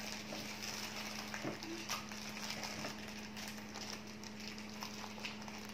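Faint crinkling and clicking of a plastic toy packet being handled and opened, over a steady low hum.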